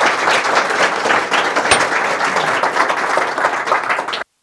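Applause from a small group of people, many hands clapping at once, cutting off suddenly near the end.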